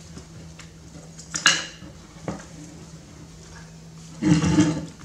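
Handling noise from a plastic food bowl and spoon: a few sharp clicks and knocks, then a louder burst of handling noise near the end, over a low steady hum.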